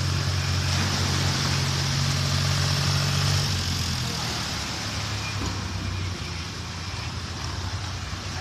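Large engine running steadily at a low pitch, easing off about three and a half seconds in, with a steady high hiss above it.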